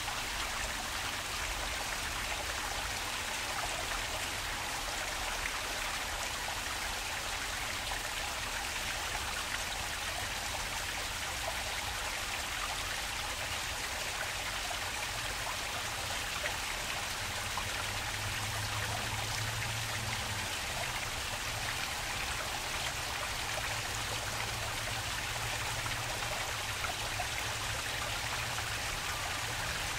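Water flowing in a park stream: a steady, even rush of trickling water that does not let up, with a faint low hum underneath in the second half.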